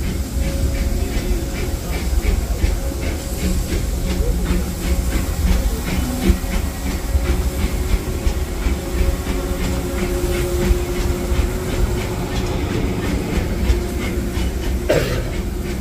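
Steam train of the Disneyland Railroad, hauled by the Fred Gurley locomotive, heard from on board: a steady rumble with a regular clatter and steam hiss. A single sharp clank comes about 15 seconds in.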